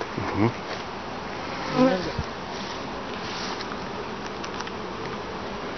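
Honeybees buzzing around an open hive, a steady hum. A person's voice is briefly heard twice in the first two seconds.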